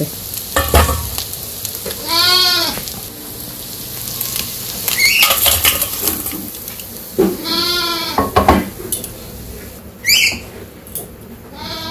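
A farm animal bleating twice, each a long call that rises and falls in pitch, with a shorter bleat near the end. Between the calls, a spatula scrapes and clatters the fried fish out of the wok into a steel bowl over a light sizzle.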